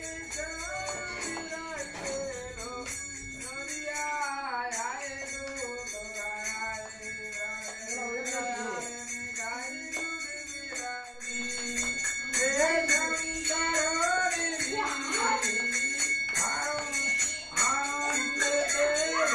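Hindu devotional chanting of the Lord's name (naam kirtan): a sung, melodic chant over jingling percussion, growing louder about twelve seconds in.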